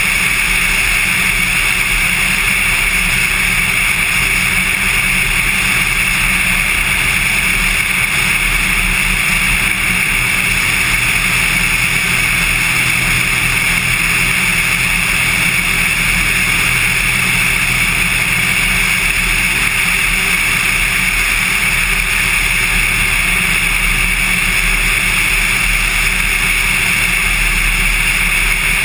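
Cessna 182 single-engine piston aircraft's engine and propeller droning steadily in cruising flight.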